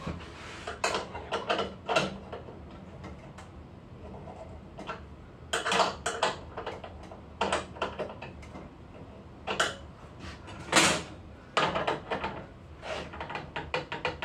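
Parts inside a Lavazza Espresso Point EP 2100 capsule coffee machine being worked loose by hand and with a small tool: irregular clicks, knocks and short scrapes of metal and plastic, with a quicker run of clicks near the end.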